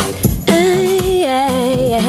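A woman singing a slow melody to her own strummed acoustic guitar: after a few strums, a long sung note comes in about half a second in, steps down to a lower note and is held with a slight vibrato over the guitar chords.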